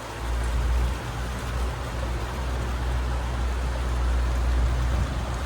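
Boat motor running steadily at low speed, a deep even hum under a steady hiss of water and air.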